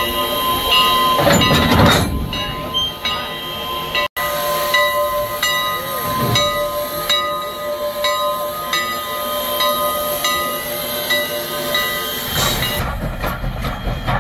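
Steam locomotive No. 89, a 2-6-0, standing with a steady steam hiss, with a louder rush of sound about a second and a half in. Near the end a low rumble comes in as the train moves off.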